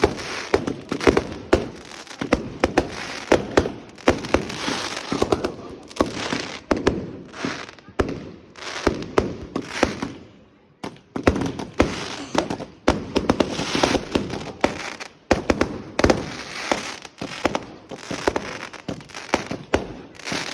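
Fireworks going off in rapid succession: dense volleys of sharp bangs and crackling, with a brief lull about halfway through.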